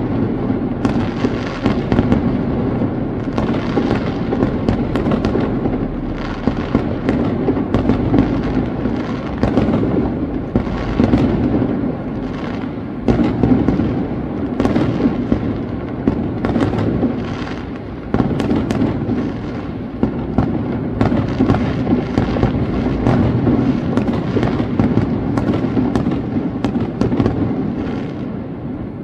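Aerial fireworks barrage: dense, rapid bangs and pops overlapping without a break, over a steady rumble of the display.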